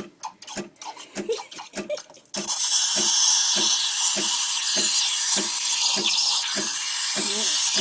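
Espresso machine steam wand frothing milk. A rhythmic pulsing from the machine comes first. About two and a half seconds in, the steam opens with a sudden, loud, steady hiss into the milk jug, and the pulsing goes on under it.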